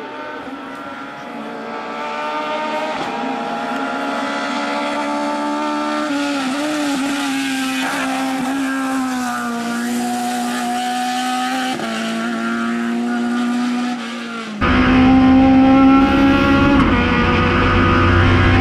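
Lada 2101 race car's 1.6-litre naturally aspirated four-cylinder engine running at high revs as the car climbs a hill. It grows louder as the car approaches, and its pitch dips briefly a few times. Near the end it cuts abruptly to the engine heard from inside the car, louder and deeper.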